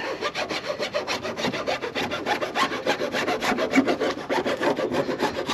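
Hand file rasping along cured West System Six10 thickened epoxy on a fibreglass sailboat gunwale, in a rapid, even scraping of roughly ten strokes a second. The file is taking off the excess epoxy to level the repair flush with the rail.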